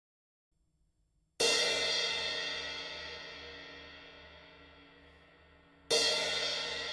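A cymbal struck twice, about four and a half seconds apart, each hit ringing out bright and slowly fading away.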